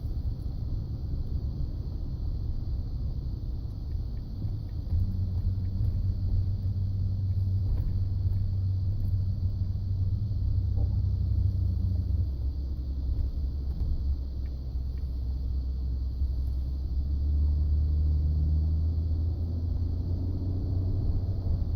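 Ford F-150 pickup under way, a steady low rumble from its engine and drivetrain, with a low hum that shifts in pitch a few times.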